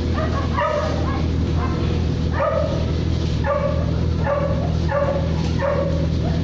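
A dog barking in short, repeated calls, about one a second, over a steady low hum.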